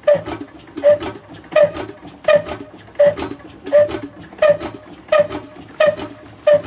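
Old stationary engine with heavy spoked flywheels being turned over by hand at its pulley during a start attempt. It gives an even, sharp metallic clack with a short ringing note about once every 0.7 seconds as the flywheels come round.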